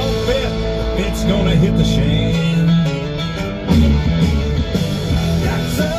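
Country song with guitar playing over a truck's satellite radio.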